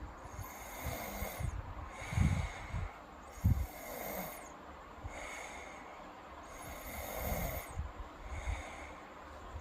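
A girl snoring in her sleep: slow breaths about every three seconds, with a couple of short, louder low pulses a little over two and three and a half seconds in.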